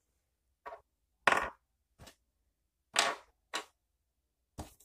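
Hard plastic action-camera mount pieces knocking and clacking on a table as they are picked up and set down: about six short knocks, two of them louder.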